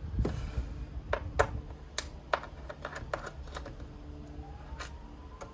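Irregular sharp clicks and taps, about eight of them, from the internal parts and cable connectors of an iMac being handled and unplugged during disassembly, over a low rumble of handling.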